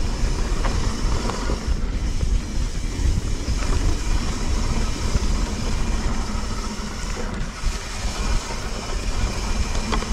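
Mountain bike being ridden along a dirt trail: tyres rolling over the ground and the bike rattling, with steady wind buffeting the action-camera microphone.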